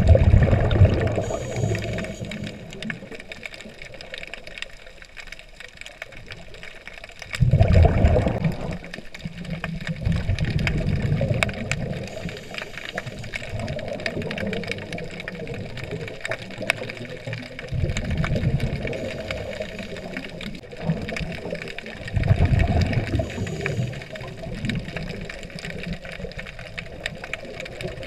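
Underwater sound of a scuba diver's exhaled bubbles rushing out in loud surges every few seconds, over a steady crackling hiss.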